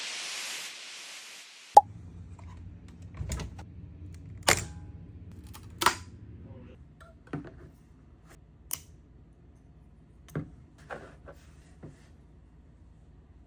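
A hiss fading away, then a sharp click and a scattered series of short, light clicks and taps over a faint low steady hum.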